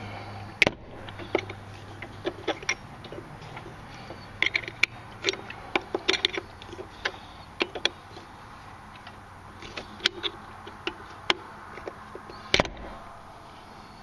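Irregular small metallic clicks and scrapes of screwdrivers working at the snap ring on a snowmobile's starter pinion shaft, with two louder knocks, one just after the start and one near the end.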